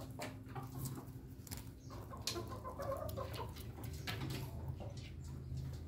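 Roosters clucking low, with scattered short taps and clicks of beaks pecking grain off a sandy floor.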